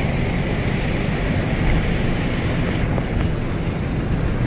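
Steady city street traffic noise, with wind buffeting the microphone.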